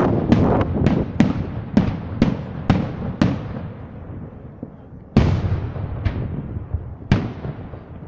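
Aerial firework shells bursting in quick succession, about two bangs a second, each followed by an echoing tail. After a short lull, a louder burst comes about five seconds in, followed by a couple more.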